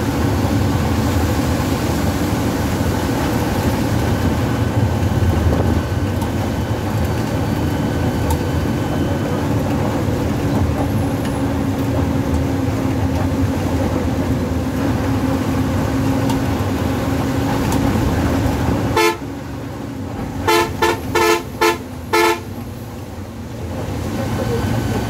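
Steady engine and road noise inside a moving coach bus, with a low hum. Near the end the engine noise drops and a horn sounds: one short blast, then four quick toots in a row.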